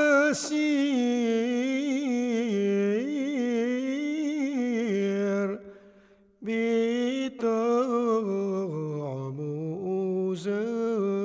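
A solo voice singing long, wavering held notes in a chant-like line, in two phrases with a short break about five and a half seconds in; the second phrase dips lower before rising again.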